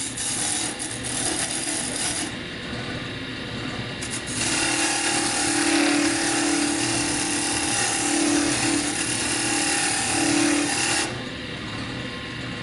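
Wood lathe running while a parting tool, held flat to cut with its full face, cuts into a spinning spindle of soft wood with a steady scraping hiss. The cutting eases off briefly about two seconds in, then runs louder and steady from about four and a half seconds in until near the end.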